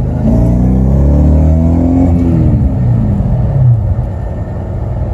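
The V8 engine of an Audi B5 A4 accelerating hard in second gear under a throttle punch. The revs climb for about two seconds, then fall away as the throttle comes off, and the engine settles to a steady run.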